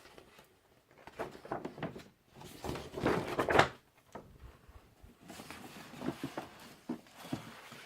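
Paper inserts and posters rustling and sliding against a cardboard record jacket as they are handled and pulled out, in several short bursts, loudest about three seconds in.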